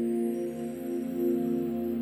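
Soft new-age background music of long, layered held notes.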